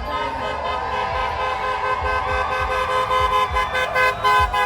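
Car horns honking from passing traffic: several long, held blasts at different pitches, overlapping one another. Drivers are honking in support of protesters.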